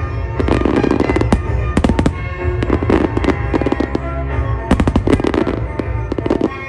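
Aerial fireworks bursting in rapid volleys of sharp bangs and crackles, over music with held tones.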